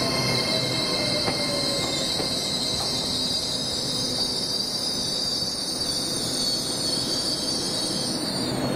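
A train's wheels squealing against the rails as it passes, a steady high-pitched squeal that sags slightly in pitch and dies away near the end. A single wheel click about a second in.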